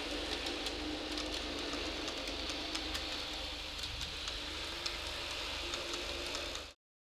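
N gauge model train running along the track: a steady rolling hiss from its small metal wheels, irregular sharp clicks over rail joints, and a faint steady motor hum. The sound cuts off suddenly near the end.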